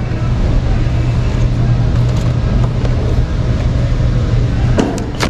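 A steady low hum throughout, with a few sharp clicks near the end as a clear plastic package of shower curtain hooks is handled.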